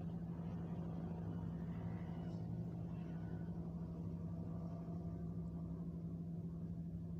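A steady low engine hum that does not change.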